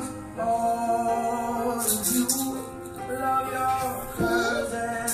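Recorded piano ballad playing with a singing voice, its sustained piano chords steady throughout. A short high rattle comes about two seconds in and again near the end.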